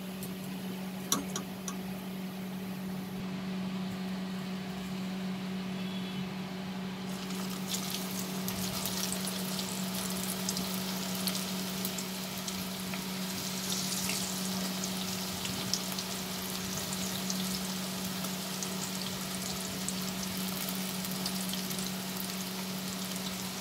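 Coated okra deep-frying in hot oil in a steel kadai: a steady sizzling crackle that grows busier about seven seconds in as the next batch goes into the oil. A few light clicks about a second in, and a steady low hum underneath.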